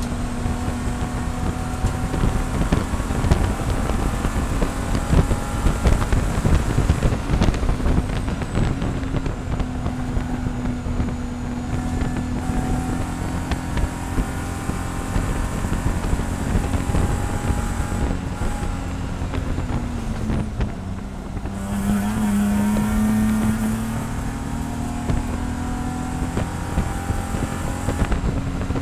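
BMW E46 SpecE46 race car's straight-six engine running hard, heard from inside the cockpit, with wind and road noise. The engine note holds steady, drops briefly about two-thirds of the way through as the driver lifts for a corner, then climbs back.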